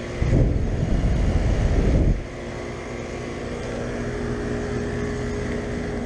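Carrier central air conditioner condenser units running with a steady hum. For about the first two seconds, the fan's upward air blast buffets the microphone with a loud low rumble.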